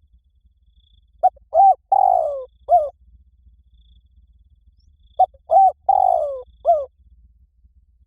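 Spotted dove cooing: two phrases about four seconds apart, each of four notes, a short one, an arched one, a long falling one and a final arched one.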